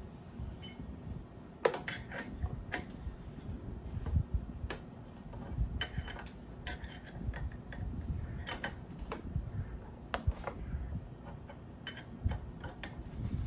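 Small metal parts clicking and clinking, a brake-line banjo bolt, washers and banjo fitting being handled and fitted. The clicks are scattered and irregular throughout, over a low steady rumble.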